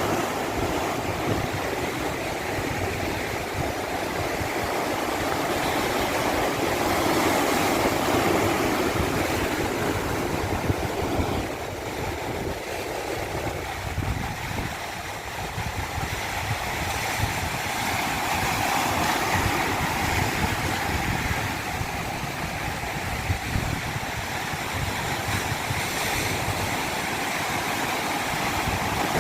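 Continuous rushing of running water, a steady wash that swells and eases slowly over several seconds.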